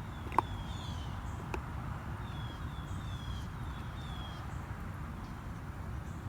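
A songbird calling in a run of short, falling chirps that stop about four and a half seconds in, over a steady low rumble. A sharp click about half a second in is the loudest sound, with a fainter one about a second later.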